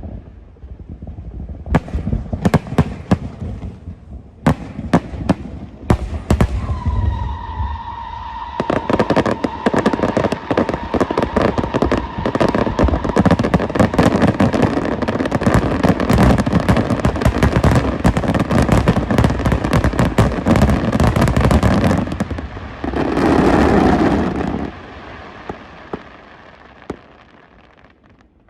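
Aerial fireworks going off: a few separate loud bangs, then a dense, rapid barrage of crackling reports with a steady whistling tone running through it. A short rushing burst follows near the end, and then the sound dies away.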